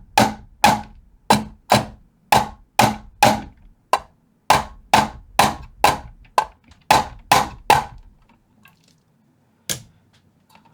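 Hammer blows, about two a second in a steady run of some eighteen strikes, then a pause and one last strike near the end. The hammering is knocking down a can capacitor's mounting in a vintage guitar amp chassis so the capacitor sits tight.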